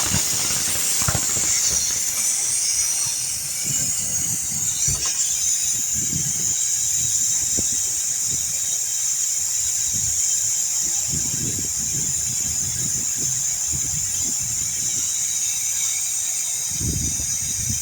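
Air hissing steadily out of a car tire's open valve stem as the tire deflates, with scattered low thumps of handling underneath.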